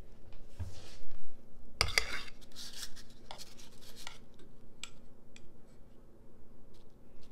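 Metal spoons clinking and scraping against a glass mixing bowl and each other while muffin batter is scooped out. There is a louder clatter about two seconds in, then scattered light clicks.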